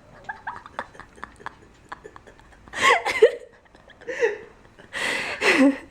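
Faint light ticks, then a few short wordless vocal sounds with sliding pitch: high squeals and breathy laughing or gasping.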